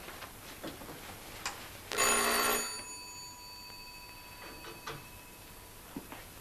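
Electric apartment doorbell ringing once for under a second, its ringing tones fading over the next two seconds. Light clicks of coat hangers on a rail come before and after it.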